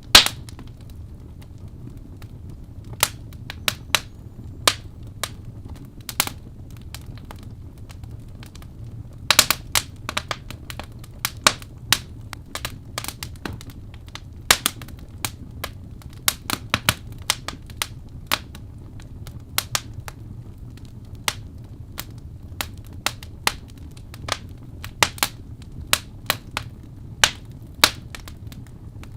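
Wood fire burning in a fireplace: irregular sharp crackles and pops over a steady low rumble of the flames, with a loud pop right at the start and a burst of crackling about nine seconds in.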